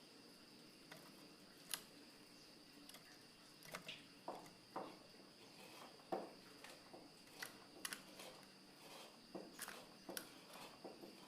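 Oriental magpie-robin (kacer) giving faint, scattered short sharp clicks and chips between songs, irregularly spaced, over a steady high-pitched hum.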